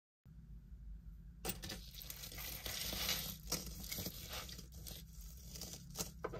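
Crinkling and rustling of hand-handled jewelry and its wrapping, with many small clicks and taps, over a low steady hum.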